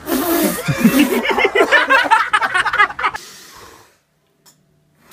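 A diver's lung tester prank pipe blows a short rush of air and white powder back at the man blowing into it, followed by about three seconds of laughing and spluttering that fades to near silence.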